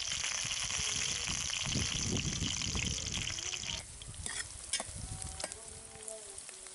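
Sliced onions and green chillies sizzling in hot oil in a metal pot. The sizzle drops sharply a little past halfway; after that a steel spoon stirs them, scraping and clicking against the pot.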